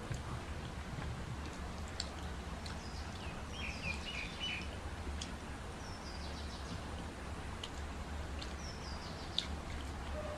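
Small birds chirping in short runs of high notes that step downward, heard three times, over a steady low hum. A few soft clicks come from eating with the hands off steel plates.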